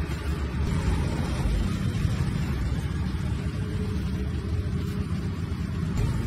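Steady low rumbling background noise with a hiss over it, even throughout.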